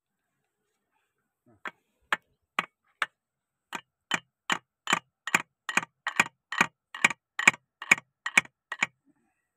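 Hand socket ratchet wrench clicking as it is worked on a bolt of an excavator swing motor: short, evenly spaced clicks, about two to three a second, starting about two seconds in and stopping near the end.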